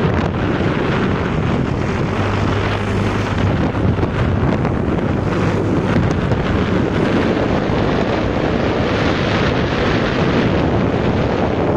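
Wind rushing over the microphone of a moving motor scooter, with the scooter's small engine running underneath as a low hum that strengthens briefly about two seconds in.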